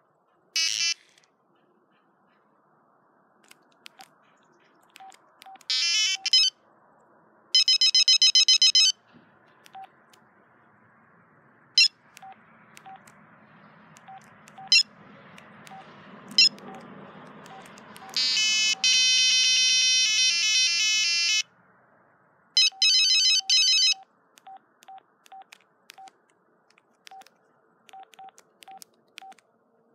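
Samsung SCH-N370 mobile phone's speaker sounding short electronic beeps and brief tune snippets, the longest a few-second run of many notes about two-thirds through, with faint ticks in between as its buttons are pressed.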